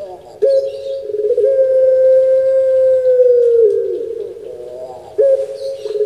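Puter pelung dove (a domesticated collared dove) cooing: a long, low, drawn-out coo that starts about half a second in, holds steady for about three seconds and falls off at the end, followed by the next coo starting about five seconds in.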